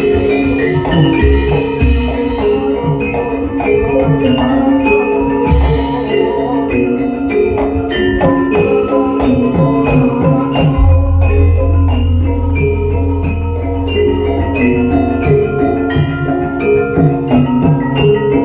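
Javanese gamelan playing a gending: bronze metallophones and kettle gongs struck in a steady, busy pattern of ringing notes. A deep low tone enters about eleven seconds in and rings on, in the manner of a large hanging gong.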